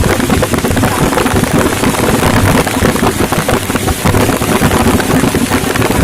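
Heavy rain falling: a dense, steady patter of drops.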